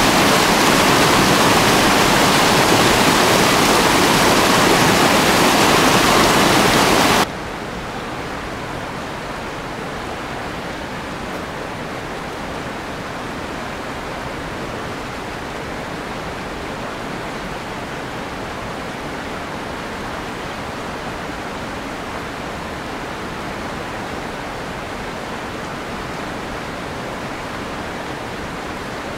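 Small waterfall rushing over rocks, a loud steady roar of water that cuts off abruptly about seven seconds in. It gives way to a much quieter, even hiss.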